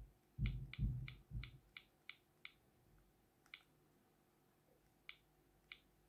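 Sony Ericsson T650i key clicks as the navigation key is pressed to scroll through the phone's menus: short, pitched ticks, one per press. A quick run of about seven comes in the first two and a half seconds, then three more spaced out, with dull handling thumps under the first few.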